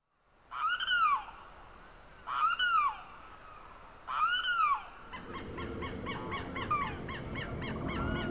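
Geese calling: three drawn-out calls that rise and fall in pitch, about two seconds apart, then from about five seconds in many short honks from a flock overlapping, over a low rumble that builds toward the end.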